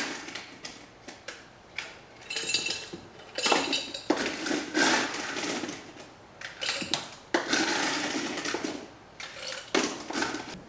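Kitchen clatter of a glass mason-jar mug being handled on a counter: irregular clinks, knocks and rattles, with a longer rattling run about seven seconds in.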